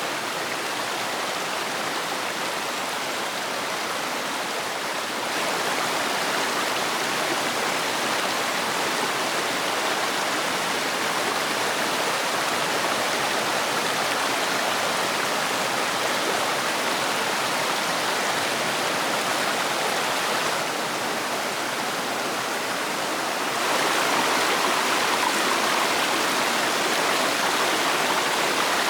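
Mountain valley stream rushing steadily over rocks, a constant hiss of running water that steps louder a few times.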